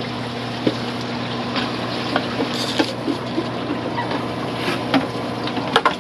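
Aquarium pumps and filter water running steadily with a low hum. Light, scattered clicks and knocks sound over it, from plastic pitchers and bags being handled.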